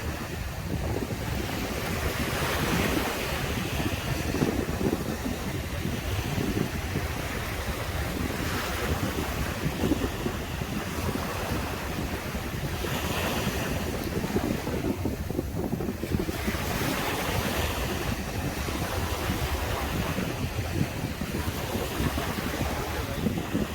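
Sea waves breaking and washing up on a sandy beach, the surf swelling every few seconds, with wind buffeting the microphone as a low rumble underneath.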